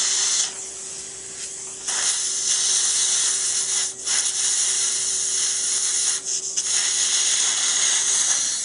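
Dental implant drill running in a contra-angle handpiece as a 2.2 mm twist drill cuts the implant site in soft jaw bone. It gives a steady whine that stops near the end, under a loud hiss of irrigation water spray. The hiss drops away briefly about half a second in and again a few times.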